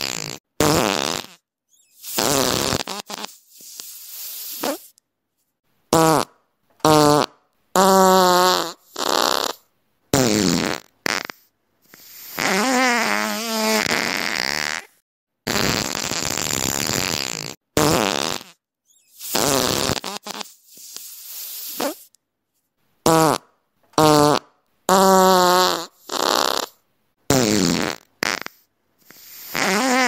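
A string of fart sound effects, one after another with dead silence between them, lasting from a fraction of a second to about two seconds each. Some are airy and hissing, others buzz with a wavering pitch.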